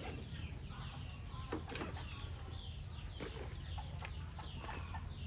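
Birds chirping over and over in short, falling high notes, with a few sharp clicks and a steady low rumble underneath.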